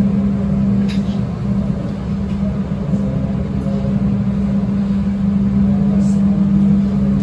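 Mutiara Selatan passenger train running: a steady low hum with rumble underneath and a couple of faint clicks.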